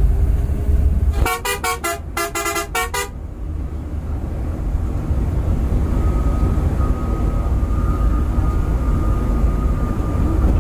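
A vehicle horn gives a rapid run of short toots about a second in, lasting about two seconds. Underneath is the steady low rumble of the moving Scania bus and its road noise.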